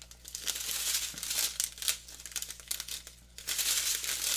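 Small plastic bags of diamond-painting drills crinkling as they are handled and sorted through, in two spells of irregular rustling.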